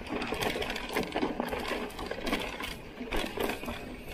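Mountain bike rattling and clattering as it runs fast down a loose, stony dirt trail: a dense string of irregular clicks and knocks from the bike and its tyres hitting stones, over a steady rush of rolling noise.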